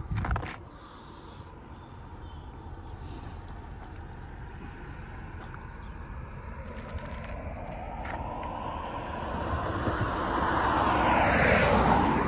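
A road vehicle approaching and driving past close by, growing louder over several seconds and peaking near the end as it passes, its pitch dropping as it goes by.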